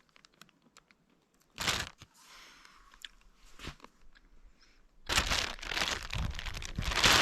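Close-up crunching and rustling: a few small clicks and one short crunch about a second and a half in, then a louder, continuous stretch of crunching and crinkling over the last two seconds.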